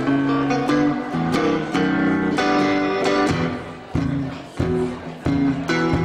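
Solo blues played on a Stratocaster-style electric guitar through an amplifier: held, ringing notes for the first four seconds, then short, choppy picked notes.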